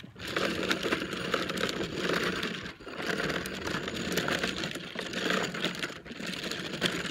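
Hard plastic wheels of a toddler's ride-on toy rolling over asphalt: a steady, dense rattle that eases off briefly twice.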